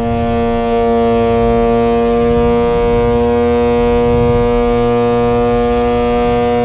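Car exhaust note at steady high revs, picked up right beside the tailpipe, holding one unchanging pitch, with wind and road rumble underneath.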